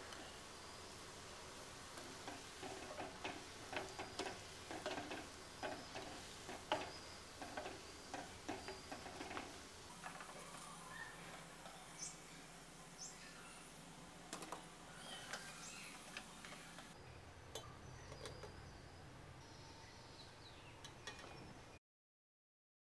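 Gulab jamun dough balls deep-frying in hot oil: a faint sizzle with many small crackles and pops, busiest in the first half.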